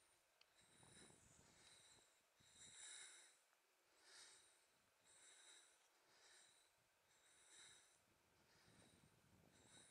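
Very faint, rhythmic breathing of a hillwalker on the move, each breath a soft hiss about a second apart.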